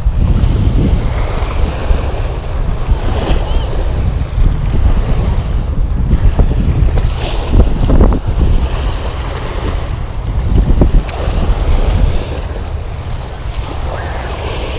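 Loud, gusty wind rumble on the microphone over waves washing against a rocky breakwater.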